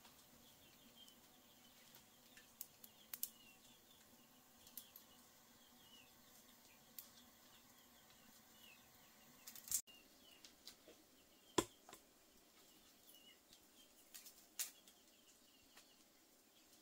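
Quiet outdoor ambience with scattered sharp clicks and knocks, the loudest about ten and twelve seconds in, and faint short chirps throughout.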